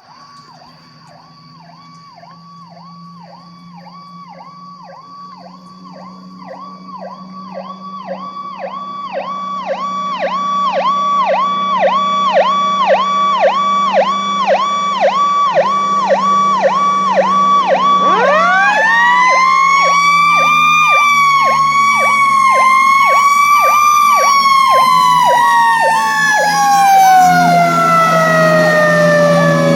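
Fire engine approaching with sirens sounding: an electronic siren runs in a fast, even repeating pattern and grows louder, over the low drone of the diesel engine. About two-thirds of the way through, the Federal Q2B mechanical siren spins up with a rising wail, holds at its high pitch, then winds down in a long falling moan near the end.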